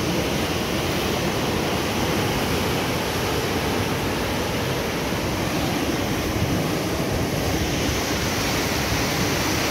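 Ocean surf washing over and breaking among coastal rocks: a steady, unbroken rush of water.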